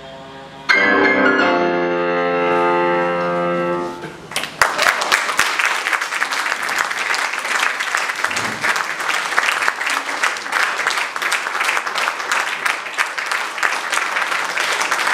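A loud final piano chord, struck about a second in and held for about three seconds as it dies away, then an audience applauding steadily for the rest of the time.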